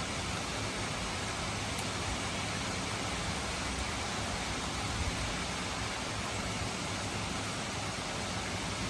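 Gentle rain falling steadily, an even hiss without separate drops standing out.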